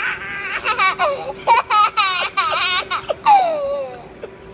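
A young child laughing in a quick run of high-pitched giggles and squeals, ending with a long squeal that falls in pitch, over a faint steady hum.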